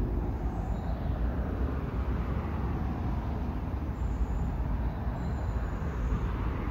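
Road traffic crossing the bridge overhead: a steady rumble of tyres and engines that swells and eases as vehicles pass.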